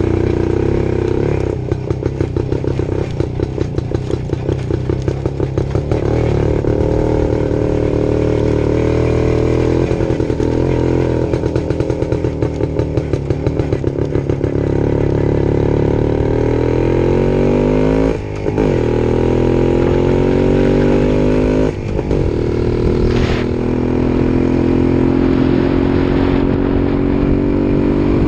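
Single-cylinder motorcycle engine riding over rough grass. It pulses on and off the throttle in the first half, then revs up through the gears, rising in pitch, with two brief drops at gear changes in the second half.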